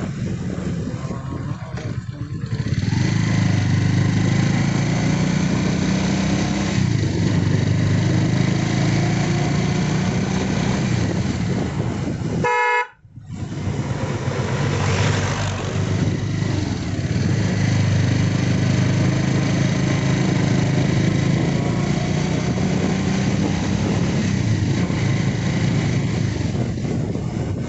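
Motorcycle engine running steadily under way, with wind rushing over the microphone. About halfway through there is a short horn honk, then the sound cuts out for a split second.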